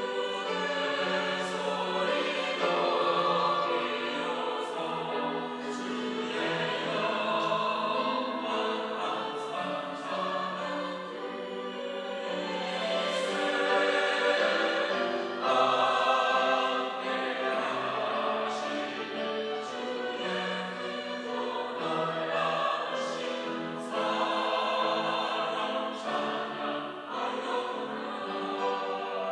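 Church choir singing an anthem in harmony, many voices together, with instrumental accompaniment.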